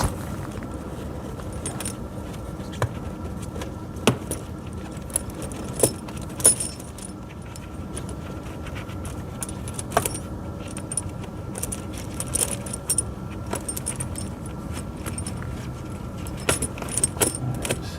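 Steel tractor tire chain links jingling and clinking as the chain is handled, with sharp clinks now and then, over a steady low hum.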